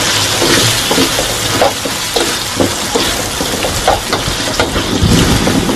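Cubed potatoes and carrots sizzling in oil in a metal wok, stirred with a wooden spatula that scrapes and knocks against the pan again and again over a steady hiss.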